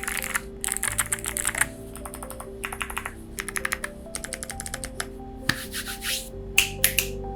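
Fast typing in bursts on a Nut65 mechanical keyboard with clicky Kailh Box White switches, NDN Mictlan keycaps, an FR4 plate and full foam. It ends with two loud single keystrokes. Soft background music plays underneath.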